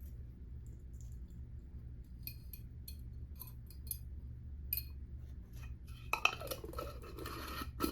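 Light clinks and clicks of a glass jar and small metal carburetor parts being handled and set into an ultrasonic cleaner, with a denser rattling stretch near the end over a steady low hum.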